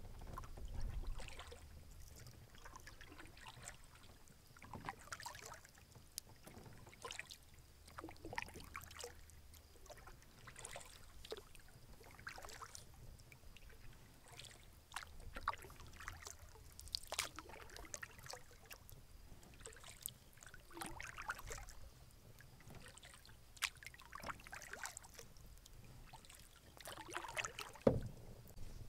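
Canoe paddling on calm lake water: the paddle dips and pulls with soft splashes and drips every second or two. There is a single louder thump near the end.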